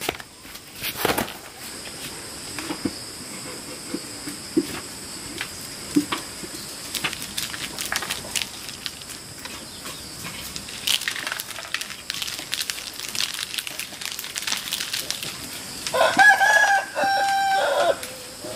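Scattered taps and rustles over a steady high-pitched whine; near the end a rooster crows once, about two seconds long, the loudest sound.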